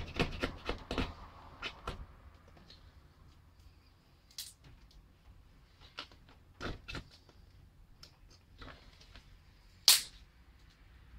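Handling noises of small objects on a workbench: a quick run of light clicks and taps at first, then scattered single knocks, and one sharper click near the end.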